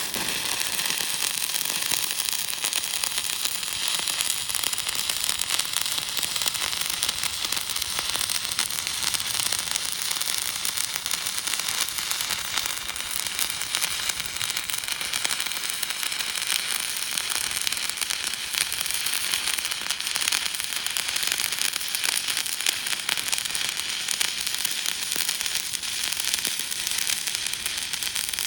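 Electric welding arc crackling and sizzling, struck abruptly and then burning at an even level.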